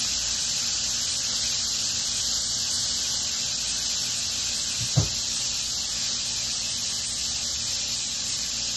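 Salmon fillets sizzling steadily in olive oil in a non-stick skillet, a high even hiss, with one dull knock about five seconds in.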